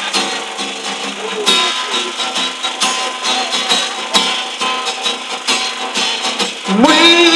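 Acoustic guitar strummed in a steady rhythm, an instrumental passage between sung lines; a man's singing voice comes in near the end.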